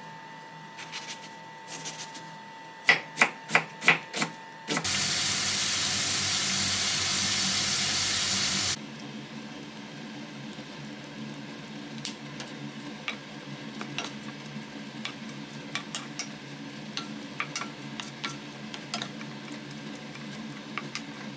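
A chef's knife chops through an onion onto a wooden cutting board, with several sharp knocks, five loud ones in quick succession. Then a loud steady hiss sounds for about four seconds and cuts off. After it, chopped onion and green pepper sizzle quietly in a frying pan, with light clicks and scrapes of a wooden spatula stirring them.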